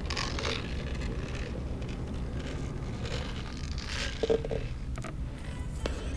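Short rustling and scraping noises over a steady low hum, with a sharper knock about four seconds in and a few light clicks near the end.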